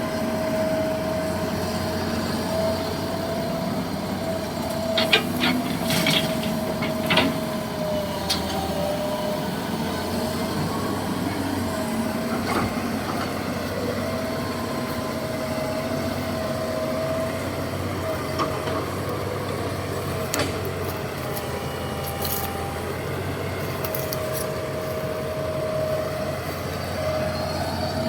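Heavy diesel machinery running steadily, a low hum with a faint steady whine over it, and a few sharp knocks about five to seven seconds in and again about twenty seconds in.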